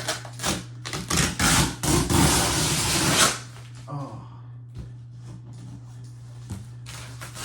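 Cardboard shipping box being torn and pulled open: a few short scraping tears about a second in, then a longer rasping tear lasting just over a second, followed by a few soft handling knocks. A steady low hum runs underneath.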